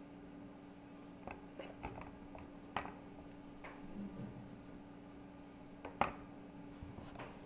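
Scattered light clicks and taps of hands and a spoon working over a floured wooden pastry board while filling panzerotti dough, the sharpest tap about six seconds in, over a steady low hum.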